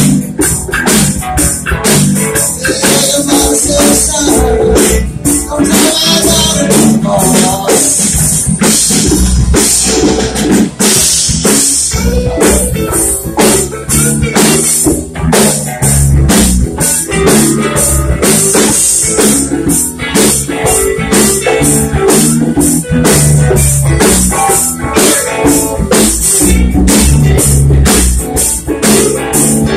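Live blues band playing loudly: two electric guitars, bass guitar, drum kit and congas.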